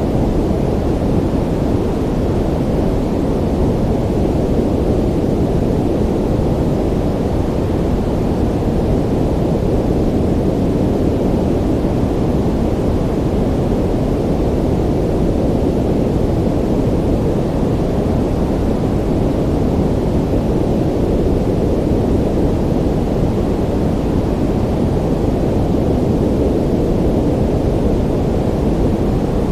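Ocean surf as a steady, low rushing roar, even throughout with no single wave crash standing out.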